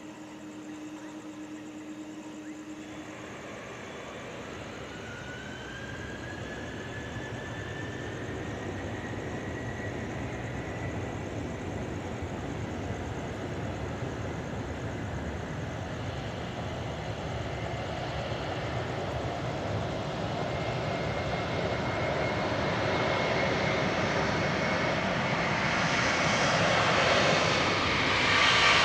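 Airbus A330-200 jet engines spooling up for takeoff: a whine rising in pitch over a steady rumble, the engine noise growing steadily louder as the takeoff power builds and the airliner rolls.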